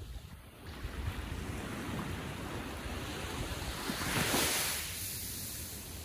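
Small ocean waves lapping onto a beach. The hiss of surf builds from about a second in and is loudest as a wave breaks and washes up the shore just past four seconds in, then eases.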